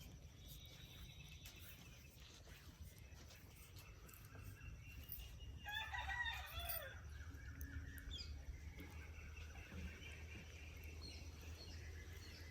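A rooster crowing once, faint, about six seconds in.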